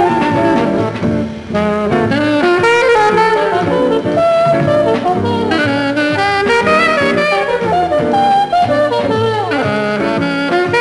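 Jazz soundtrack music: saxophone and brass play a busy melody with bending notes, sliding down in a falling run near the end.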